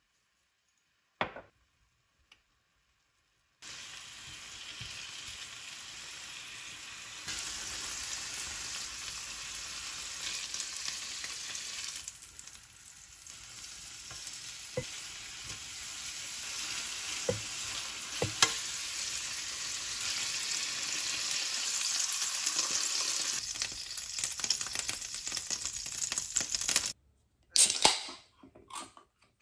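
Thinly sliced beef sizzling on a hot grill pan: a steady hiss starts a few seconds in and grows louder, with a few sharp clicks of metal tongs against the pan. Near the end the sizzling cuts off, and a drinks can is opened with a few short bursts of sound.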